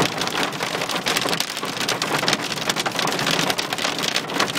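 Hailstones pelting down in a heavy hail storm, a dense continuous clatter of countless small impacts.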